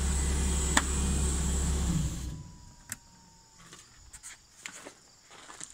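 Boom lift's engine idling with a steady low drone, then shut off about two seconds in; a sharp click comes just before the first second, and scattered faint clicks and ticks follow.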